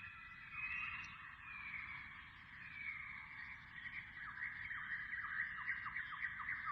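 Birdsong chorus: several birds whistling at once in overlapping held and gliding notes, joined about four seconds in by a fast run of short falling notes.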